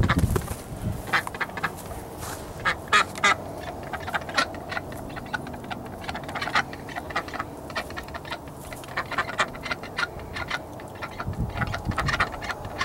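Ducks giving many short quacks in irregular runs.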